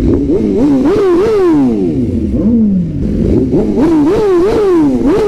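Superbike engine revved in a string of quick throttle blips, its pitch jumping up sharply and sliding back down each time, with one longer fall about two seconds in before a second run of blips.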